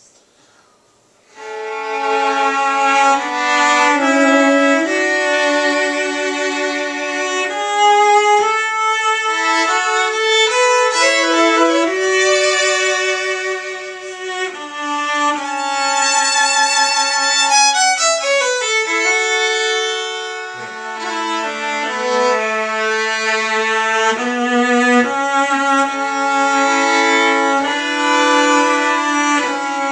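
Violin and cello playing a duet of sustained bowed notes, starting about a second and a half in after a brief hush.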